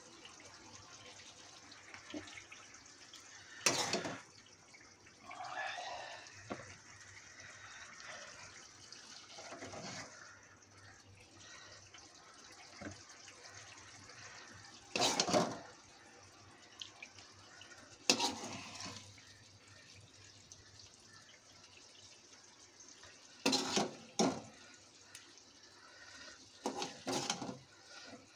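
Steel spoon scooping egg curry and gravy into a plastic bowl, with a handful of sharp, widely spaced clinks and knocks of the spoon against the pot and bowl and soft wet sounds of the gravy between them.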